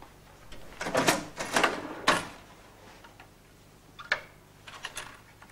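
A series of short sharp clicks and rattles in two bursts, about a second in and again around four seconds in, from money and a till being handled at a bar counter.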